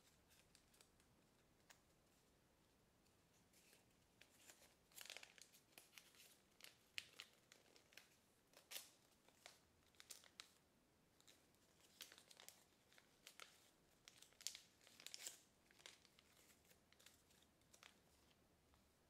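Kraft paper crinkling and crackling in short, irregular snaps as fingers pinch and shape a folded origami model. Faint, starting about four seconds in and thinning out near the end.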